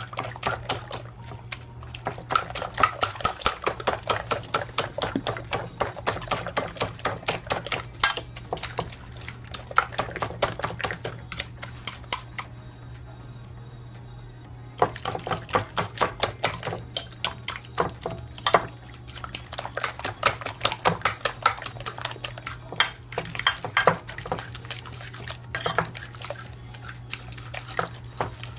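A fork beating eggs in a glass baking dish: rapid clinking of metal tines against the glass, several strokes a second, with a pause of about two seconds halfway through.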